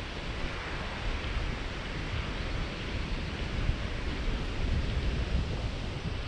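Wind blowing on the microphone: a steady rushing noise with heavy low buffeting.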